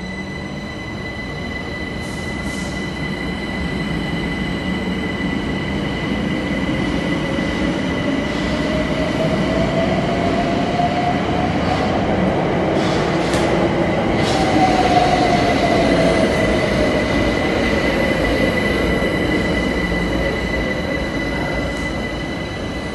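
London Overground electric trains in an underground station, one pulling out and another running in on the next track. A motor whine climbs in pitch and then falls, over a steady high whine and the rumble of wheels on the rails, with brief wheel squeals; the sound grows louder towards the middle and eases off near the end.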